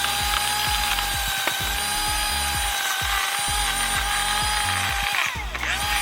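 Milwaukee M18 Fuel 20-inch battery chainsaw running at full speed through a small tree: a steady high electric whine. Near the end the motor briefly slows and spins back up.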